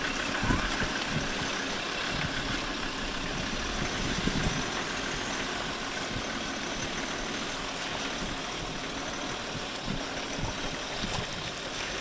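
Land Rover engine running steadily at low revs as the vehicle wades slowly through a river, over a steady hiss.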